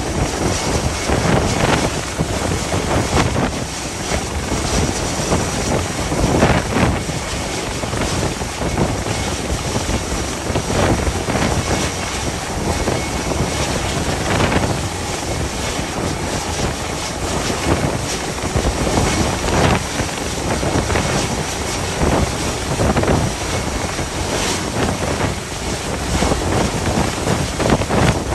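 Force 9 gale wind buffeting the microphone in gusts over the rush of the sea, a loud, steady roar that swells and eases every few seconds.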